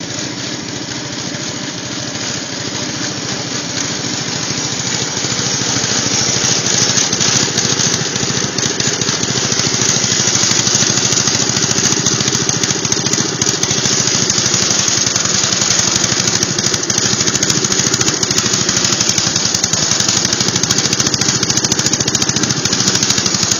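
Riding lawn mower's Briggs & Stratton four-stroke engine running on propane, a steady rapid firing beat while the mower is driven. It grows louder over the first several seconds, then holds steady.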